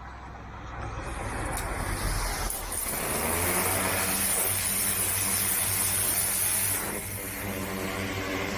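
Pressure washer running, a steady motor hum under the loud hiss of the high-pressure spray. The spray builds over the first few seconds and eases slightly near the end.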